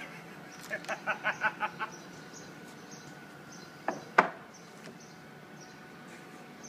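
Two sharp knocks of wooden boards being set down on a lumber stack about four seconds in, the second louder. Before them comes a quick run of about seven short pitched pulses, and faint high insect chirps repeat about twice a second in the background.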